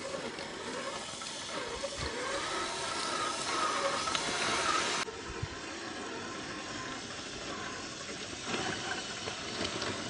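RC scale jeep driving off-road: its small motor whines, rising and falling with the throttle, over a steady hiss. The sound drops abruptly about halfway through.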